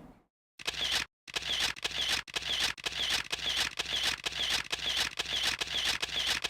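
A regular run of sharp clicks, about two a second, each with a short burst of hiss, like a shutter or mechanical clicking laid in as a sound effect.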